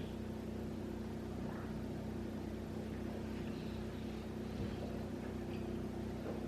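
Steady low hum with faint background hiss, with a few brief faint sounds.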